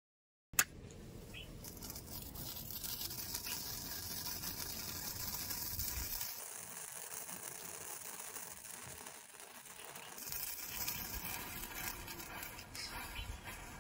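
A chain of matchsticks flaring one after another as the flame runs along the line, giving a steady fizzing hiss with a few small crackles. A sharp click comes about half a second in, where the sound begins.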